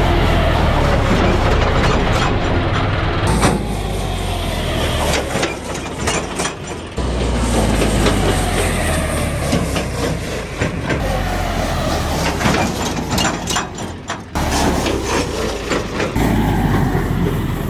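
John Deere tractor's diesel engine running as it tows a loaded trolley, its note falling off in places as the tractor slows. The sound changes abruptly several times where short shots are cut together.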